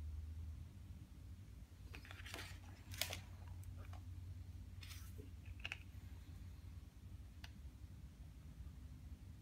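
Faint paper rustles and soft handling taps as a page of a large hardcover photo book is turned and smoothed flat, a few short sounds between about two and six seconds in, over a low steady hum.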